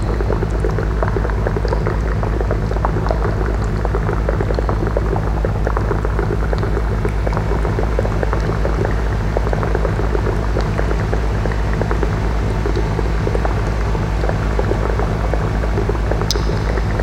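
Live electroacoustic performance: a steady low electronic drone that pulses quickly, under a dense, crackling, bubbling texture of amplified water from the containers on the performers' table.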